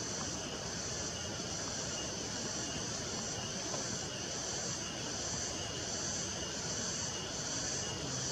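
Steady insect chorus shrilling in high, slightly pulsing bands, over a continuous rushing noise lower down.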